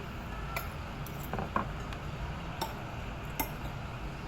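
Light clinks and taps of tableware during a meal: about five short clicks a second or so apart, the loudest about one and a half seconds in, over a steady low background hum.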